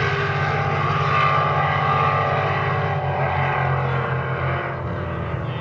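A racing motorboat's engine running flat out, a loud, steady drone that fades a little in the second half as the boat moves away.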